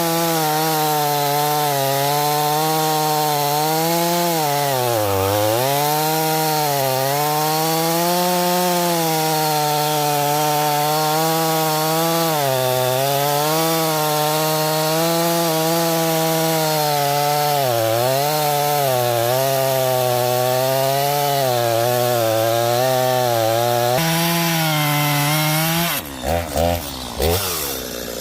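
Gas chainsaw running at full throttle while cutting through a felled tree trunk, its pitch dipping briefly several times as the chain bogs down in the wood. About two seconds before the end, the steady engine note breaks off into choppy, uneven sound.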